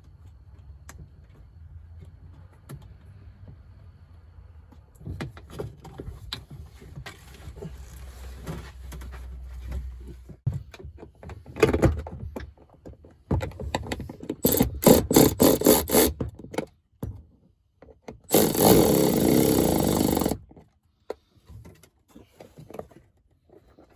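Tools fastening the winch remote's mounting bolts: knocks and clicks of handling and hand tools, a quick run of sharp strikes, then a cordless power tool running for about two seconds before cutting off.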